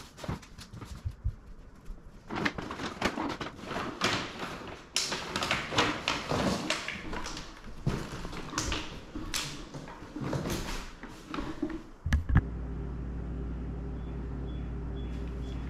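Cardboard box and bags rustling, scraping and knocking as they are handled and moved. About twelve seconds in, this gives way to a steady low hum.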